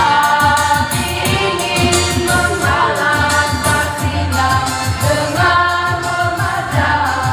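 Youth choir singing a hymn in several voice parts, the voices holding and changing notes together over a steady beat.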